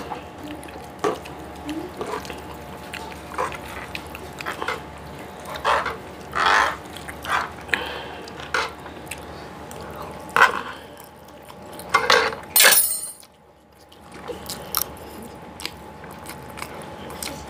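Maggi instant noodles being slurped and chewed close to a clip-on microphone, with forks clicking against the tray; the loudest slurps come about six, ten and twelve seconds in.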